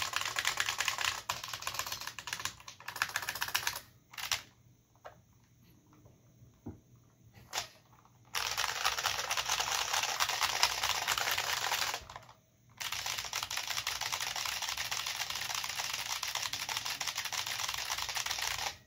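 IBM Model F122 keyboard's capacitive buckling-spring keys clattering under fast typing: about four seconds of rapid keystrokes, a pause broken by a few single key presses, then fast continuous typing with one short break about twelve seconds in.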